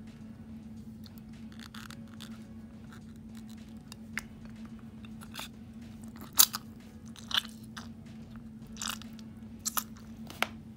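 Hands handling a water-filled glass snow globe while trying to fit a part back into its opening: scattered clicks, taps and crackly rubbing, the sharpest knock about six and a half seconds in and a cluster near the end, over a steady low hum.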